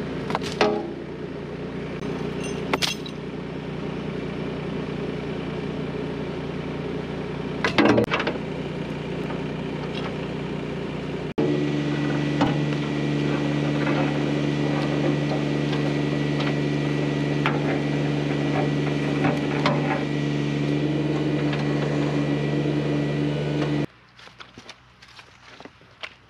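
Compact tractor engine running at a steady speed, with a few sharp knocks, the loudest about eight seconds in. Near the end the engine sound cuts off suddenly, leaving faint small clinks.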